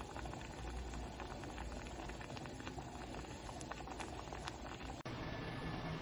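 Lentil soup boiling in a pot on a gas stove, with many small bubbles popping. About five seconds in, the sound cuts to a steady low hum.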